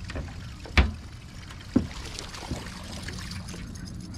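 Knocks on the aluminium jon boat: one sharp knock about a second in, the loudest sound, and a duller thump near two seconds, over a steady low hum.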